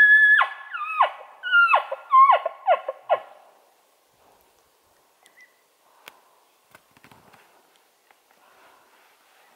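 Bull elk bugling: one high whistling note held briefly that breaks sharply downward, followed by about five shorter, falling chuckling notes, all over about three and a half seconds in. After that, only faint scattered clicks and rustling.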